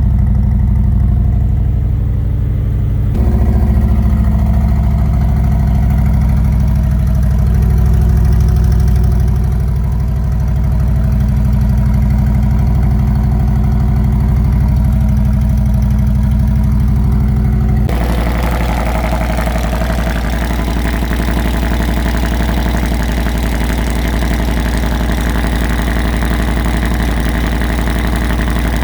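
Harley-Davidson Milwaukee-Eight V-twin idling steadily through slip-on mufflers with modified baffles. The sound changes abruptly twice, about three seconds in and about eighteen seconds in.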